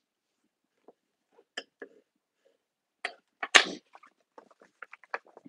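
Thin printed paper being folded and creased by hand on a tabletop: soft crackles and taps, one louder, brief rustle about three and a half seconds in, then a run of small crinkling clicks.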